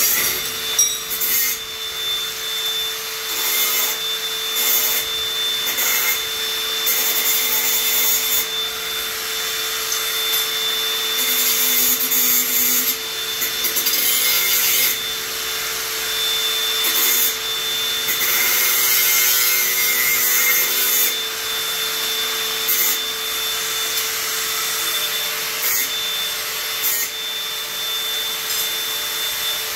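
Power tool running steadily through a long cut in frame stock, with a constant motor whine under a rasping sawing noise that swells and fades as the cut goes.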